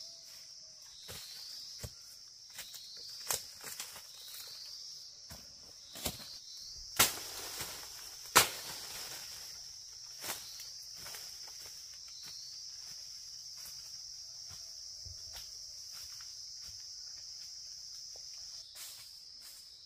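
A steady high-pitched insect chorus, with scattered close knocks and snaps; the loudest are two sharp knocks a second or so apart in the middle.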